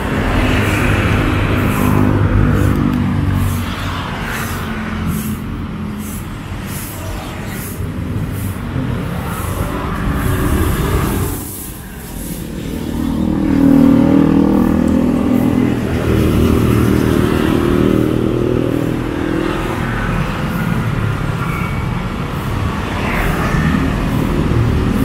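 Street traffic: vehicle engines running and passing close by, rising and falling, with a short lull a little before halfway.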